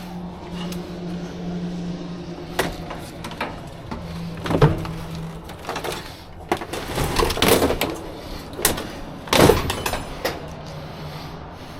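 Scrap metal clanking and rattling as pieces are handled and dropped, a string of sharp knocks with the loudest about nine and a half seconds in, over a steady low hum.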